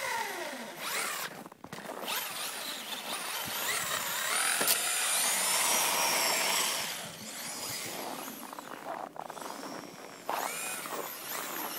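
Electric RC monster truck's motor whining, rising and falling in pitch as the throttle is worked, while its wheels spin out on snow. It is louder in the first half and drops off about seven seconds in.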